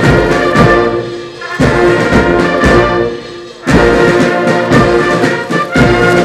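Military brass band playing a slow, sustained piece in phrases, with short breaks between them.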